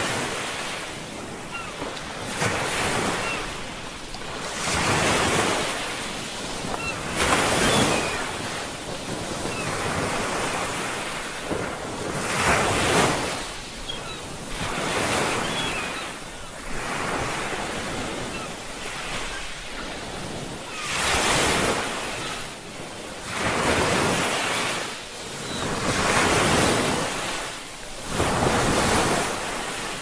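Ocean surf: waves breaking and washing on a shore, each surge of rushing water swelling and falling away every few seconds.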